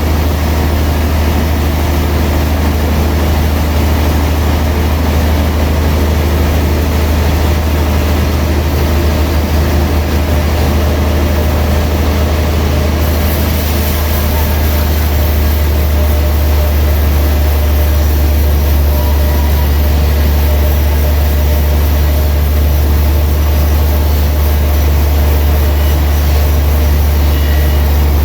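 Sawmill machinery running steadily, a loud unbroken deep hum with a hiss of cutting noise over it; the hiss grows brighter about halfway through.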